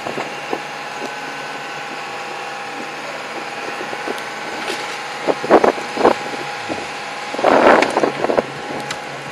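A compact telescopic crane's engine running steadily, with a few louder clatters of wooden pallets in the second half.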